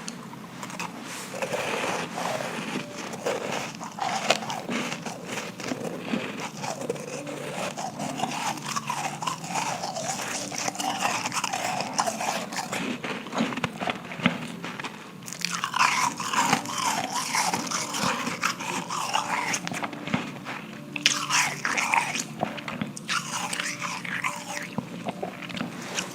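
Close-up biting and chewing of powdery ice: a continuous crunching crackle, with two louder bouts of crunching in the second half.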